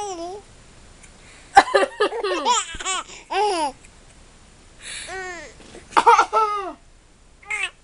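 Six-month-old baby laughing at her sister's coughing, in three bouts of high squeals that rise and fall: a long one about a second and a half in, another around five to six seconds, and a short one near the end.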